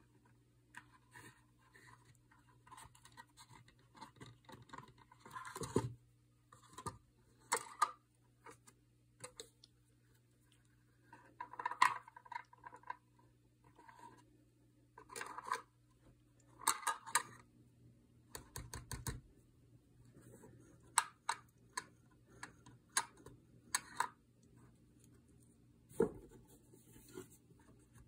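Hands handling a small plastic magic-trick box and its string: irregular light clicks, taps and scrapes, with a couple of dull thumps, over a faint steady low hum.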